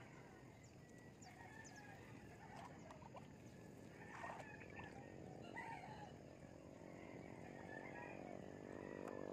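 Faint rural morning ambience: scattered short bird chirps, with a faint steady hum that builds near the end.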